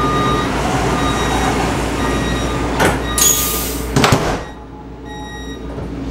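A train's sliding passenger door closing: warning beeps repeating about twice a second, a click, a short burst of air hiss, then the door thuds shut about four seconds in. Once it is sealed the background noise drops.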